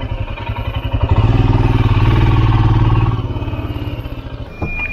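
Motorcycle engine labouring up a very steep climb, its revs and loudness rising about a second in and easing off again after about three seconds.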